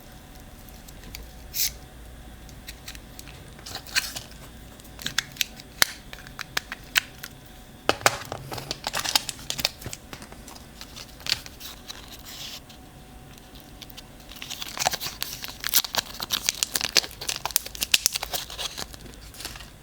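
Packaging being handled and torn open: crinkling and tearing of wrapping with sharp clicks, coming in two busy spells, one about eight seconds in and a longer one from about fifteen seconds in.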